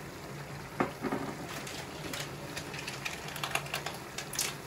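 Tomato pizza sauce being cooked in a pot on the stove: a sharp knock about a second in, then a run of irregular light clicks and ticks.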